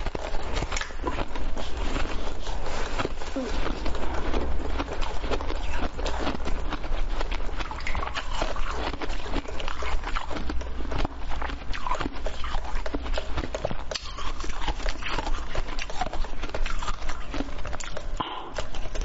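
Close-miked crunching and cracking of frozen basil-seed ice being bitten and chewed: a dense, unbroken run of sharp crackles and crunches.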